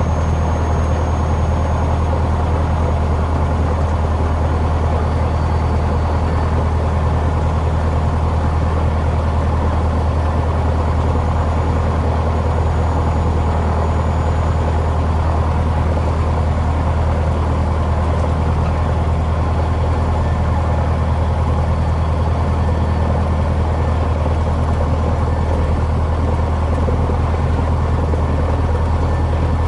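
Cessna 150H's Continental O-200 four-cylinder engine and propeller running steadily at low power on the ground, heard from inside the cockpit as an even, unchanging low hum.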